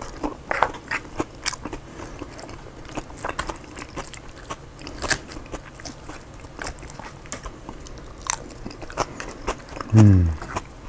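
Close-up chewing and crunching of a lettuce-based burrito bowl, with many short crisp crunches and the clicks of a plastic fork picking at the bowl. Near the end a short hummed voice falling in pitch, the loudest sound.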